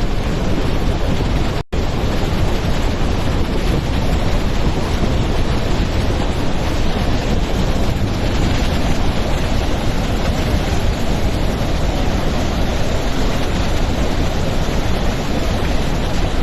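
Steady roar of a large waterfall, Jog Falls, mixed with wind rumbling on the microphone. The sound drops out for an instant a little under two seconds in, then carries on unchanged.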